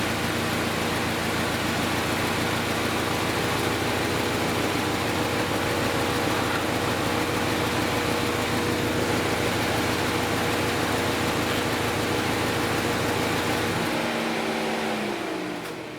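2010 Chevy Equinox's 2.4-litre four-cylinder Ecotec engine idling steadily with a cylinder 3 misfire that a coil swap has not cured. About two seconds before the end it is shut off, its hum falling in pitch as it spins down.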